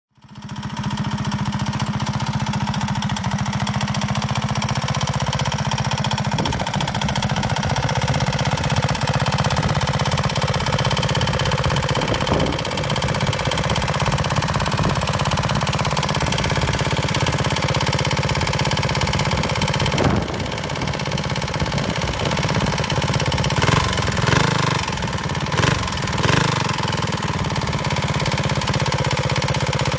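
Off-road go-kart's engine running steadily, with a few brief surges near the end.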